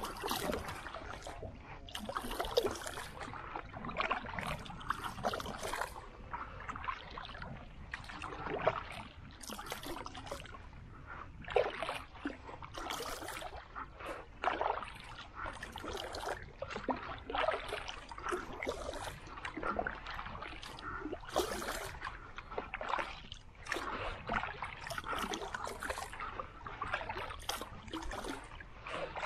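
Water splashing and sloshing against a small boat as it is moved across the lake by strokes, with irregular splashes every second or two.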